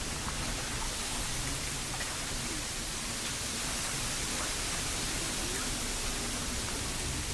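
Steady, even outdoor hiss with a few faint ticks and short chirps over it.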